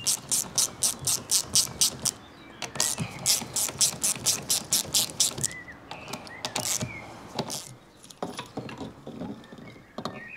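Hand ratchet wrench clicking as it backs off the nuts on a fuel tank's sender-unit flange. It clicks in two quick runs of about five clicks a second, each a couple of seconds long, followed by a few scattered single clicks.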